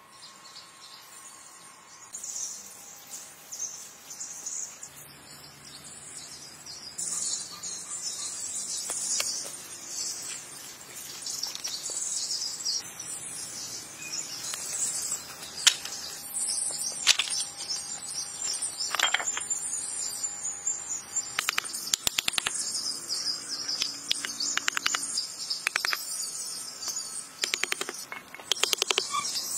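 Insects and birds chirping steadily in woodland. From about halfway through, sharp taps and clicks of hand work come through, thickest near the end as small cut wooden blocks are set down against each other.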